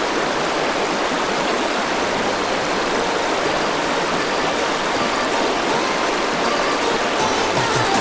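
A steady rushing noise like running water or wind, with music faintly fading in over it towards the end.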